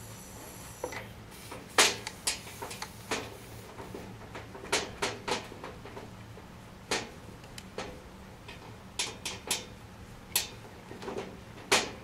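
Brass fittings and hose couplings of a refrigerant manifold gauge set clicking and knocking as they are handled and fitted together by hand: a string of irregular sharp clicks over a low steady hum.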